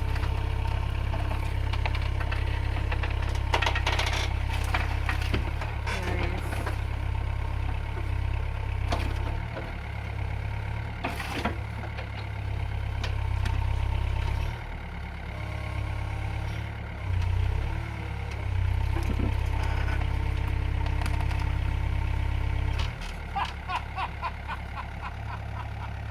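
Heavy earthmoving machine's engine running under changing load, dipping and rising several times, with scattered knocks and clanks as it digs out a tree stump.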